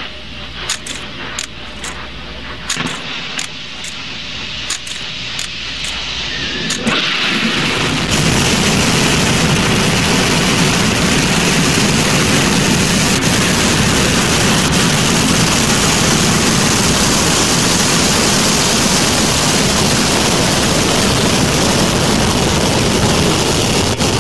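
A run of sharp clicks over a low hum, then Space Shuttle Discovery's rocket engines ignite about seven seconds in. The sound builds into a loud, steady launch roar that holds to the end.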